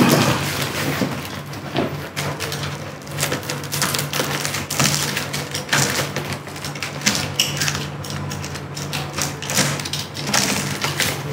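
Plastic stretch wrap crackling and crinkling in irregular scrunches as it is slit with a utility knife and pulled off a cardboard box. A low steady hum runs underneath.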